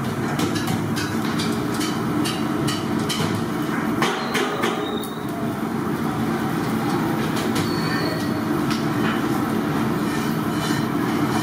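Steady roar of a busy commercial kitchen around a charcoal tikka grill, with frequent sharp metal clicks and clinks of skewers on the grill rack, most of them in the first few seconds.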